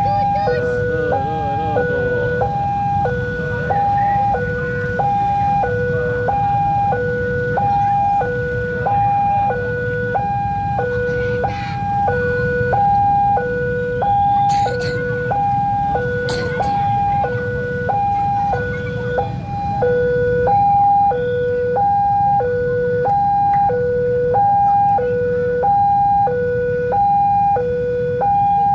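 Railway level-crossing warning alarm sounding its electronic two-tone signal, a low and a higher tone alternating steadily about once a second. It signals that a train is approaching and the barriers are down. Beneath it is the low rumble of waiting road traffic.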